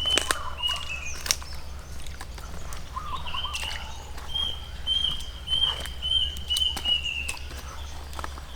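A bird chirping in a run of short high notes, with scattered clicks and knocks and a steady low hum.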